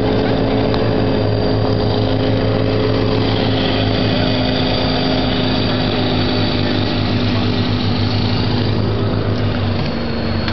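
Diesel pickup truck engine running at steady high revs under load while pulling out of a river. Its pitch sags slightly near the end.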